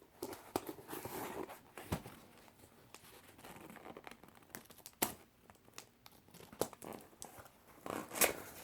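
Cardboard shipping box being opened by hand: tape and cardboard tearing and packaging crinkling, with scattered sharp knocks and clicks, the loudest about two, five and eight seconds in.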